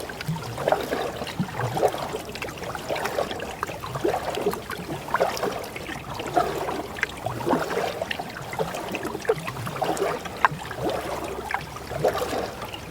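Water trickling, dripping and gurgling in many small, irregular splashes around a canoe paddle and hull as the canoe is paddled along.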